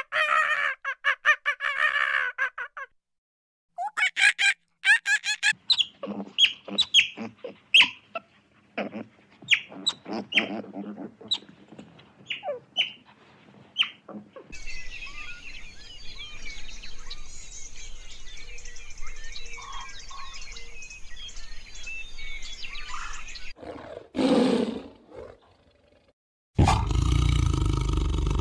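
A run of different animal and bird sounds. Rapid repeated pitched calls come first, then a string of short chirps and clucks, then a steady background of bird chatter with a single call. A loud, low sound begins about two seconds before the end.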